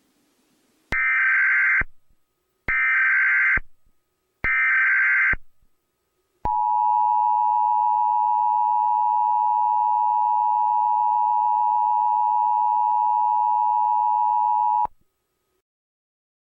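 Emergency Alert System activation: three short bursts of warbling SAME header data tones, each about a second long and spaced about a second apart, then the steady two-tone EAS attention signal held for about eight seconds before it cuts off.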